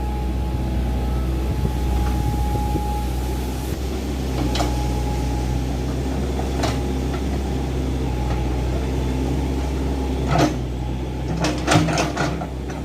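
Hydraulic excavator's diesel engine running steadily while it digs, with a thin whine that stops about three seconds in. A couple of single knocks come midway, then a quick run of metallic clanks near the end.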